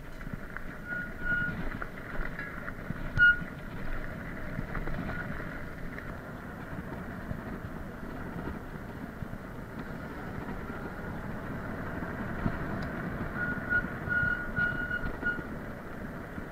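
Riding noise from an electric fat-tyre kick scooter with a hub motor: steady wind and tyre rumble over dirt and then pavement, with a sharp knock about three seconds in. A thin high whine comes and goes, mostly near the start and again near the end.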